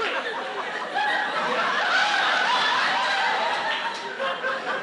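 Live audience laughing, many voices at once, swelling a little about a second in.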